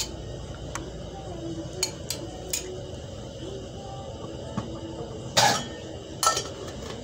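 Scattered sharp clinks of a metal spoon and frying pan on a gas stove as oil goes into the hot pan. Two louder knocks come near the end.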